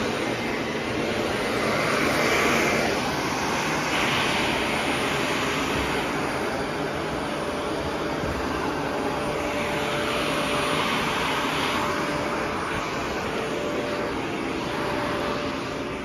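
Shark Navigator Anti-Allergen upright vacuum cleaner running over carpet, a steady rushing noise whose hiss swells and eases every few seconds as it is pushed back and forth.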